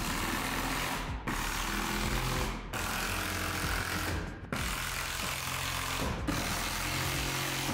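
Background music, with short breaks about every second and a half.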